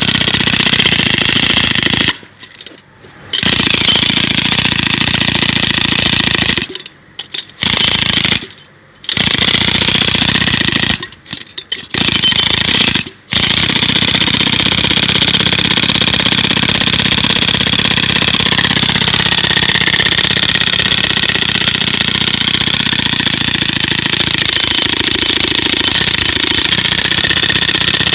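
A loud machine running steadily, stopping briefly four or five times in the first half and then running on without a break.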